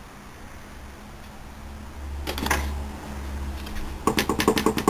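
Small 5000 BTU window air conditioner giving a low steady hum. About four seconds in, a fast, evenly spaced run of sharp clicks or rattles starts.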